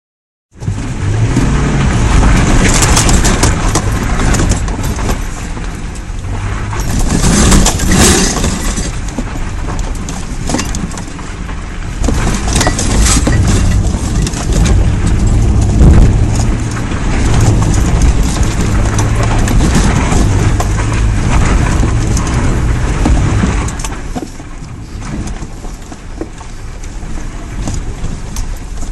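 Toyota FJ Cruiser's 4.0-litre V6 engine running under load as the truck drives an off-road mud course, with loud bursts of noise about 3 and 8 seconds in. The engine gets quieter for the last few seconds.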